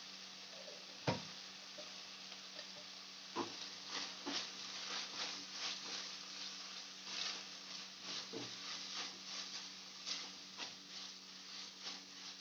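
Chopped vegetables and sauces frying in a kadai, stirred with a spatula: a few separate knocks of the spatula on the pan, then from about four seconds in a quick run of short scraping, sizzling strokes.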